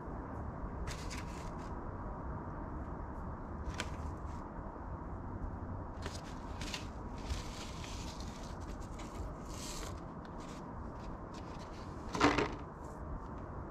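Soft rustling and scraping of hands working potting soil and handling plastic seed trays, with one louder plastic clack about twelve seconds in as a clear plastic cover is set on a tray.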